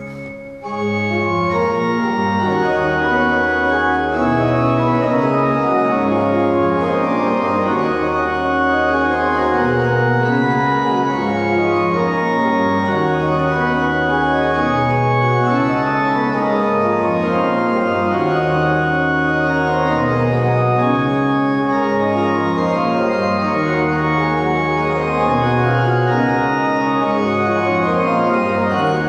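Fritts pipe organ playing a chaconne: held chords and moving upper voices over a ground bass in the pedals that comes round again every several seconds. There is a brief break about half a second in before the playing resumes.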